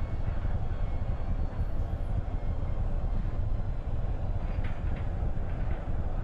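Falcon Heavy rocket's engines heard as a steady, deep, noisy rumble during ascent, shortly before side-booster engine cutoff.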